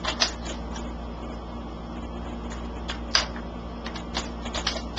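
Plastic toy shotgun shells pushed into the loading port of a toy shotgun: scattered plastic clicks and taps, the sharpest about three seconds in and a few more near the end.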